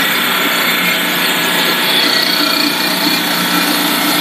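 Corn snack extrusion line machinery running: a steady mechanical din with a low hum and a faint high whine.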